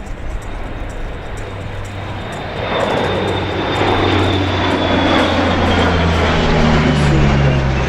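Lockheed AP-3C Orion's four Allison T56 turboprops drone and whine as the aircraft passes. The sound swells about two and a half seconds in, and the high whine and low prop tones fall in pitch near the end as it goes by.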